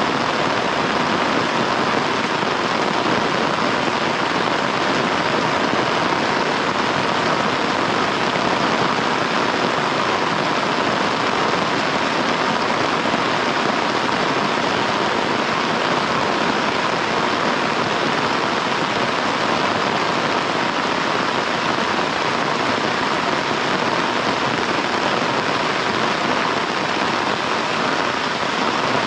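Heavy rain falling steadily, a dense, even hiss with no breaks.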